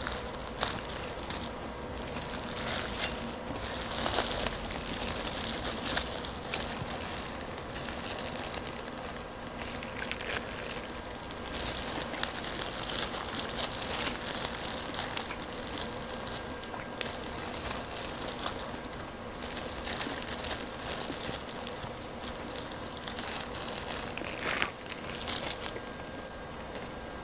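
Fried chicken being torn apart by hands in disposable plastic gloves: irregular crinkling of the glove plastic and crackling of the crisp skin as the meat is pulled apart, in short bursts.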